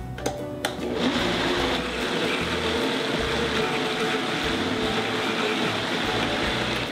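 High-powered countertop blender running steadily as it purées thick romesco sauce, with a tamper pushed down into the jar. The motor comes on about a second in and stops near the end.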